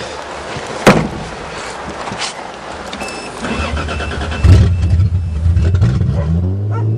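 A 1982 Toyota Cressida being started: the starter cranks, the engine catches about four and a half seconds in, and then it settles into a steady idle.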